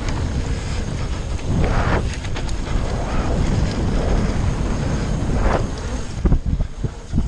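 Wind buffeting the microphone of a camera on a mountain bike descending a dirt trail at speed, with the tyres rumbling over the dirt. Near the end the bike rattles with several sharp knocks as it goes over bumps.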